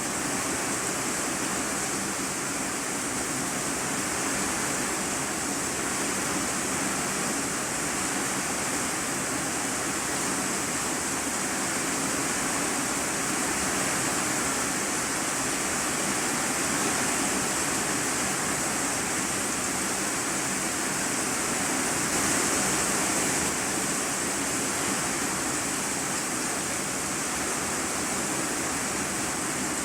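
Steady heavy rain drumming on a corrugated iron-sheet roof, heard from inside the room beneath it: a dense, even hiss with no breaks.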